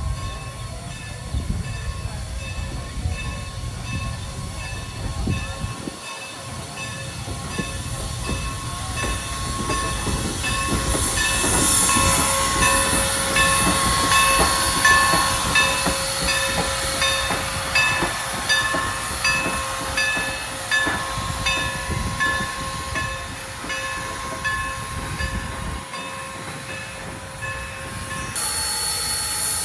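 Former Norfolk and Western 475 steam locomotive running by, growing loudest about halfway through. A regular ringing note repeats somewhat more than once a second, and the sound changes abruptly just before the end.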